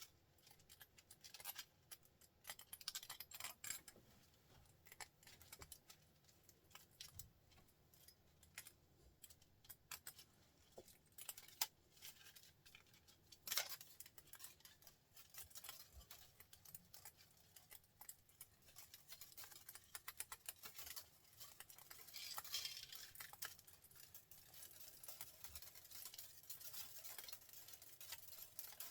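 Faint, scattered small clicks and metallic clinks of small parts being handled, with one sharper click about halfway through and a brief scraping rustle a little later.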